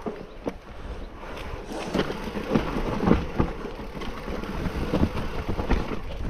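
Mountain bike riding fast down a rough trail: tyres rolling and crunching over rock and gravel, with frequent knocks and rattles from the bike. It gets louder about two seconds in.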